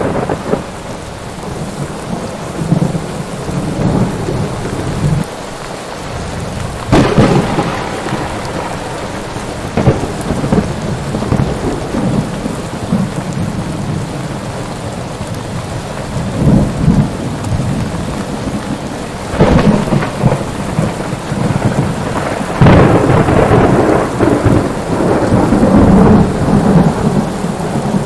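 Thunderstorm: steady rain with thunder claps and rolling rumbles. Sharp cracks come about 7 s and 19.5 s in, and a longer peal starts about 22 s in and rumbles on to the end.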